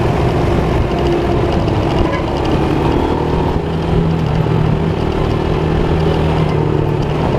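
Motorcycle engine running steadily while riding at road speed, heard from the rider's seat, with a low even engine hum and road noise.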